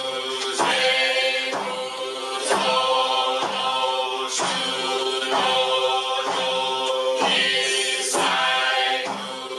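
A group of voices chanting from Zen service texts in unison, held on one steady pitch, with a regular pulse of syllables about once a second.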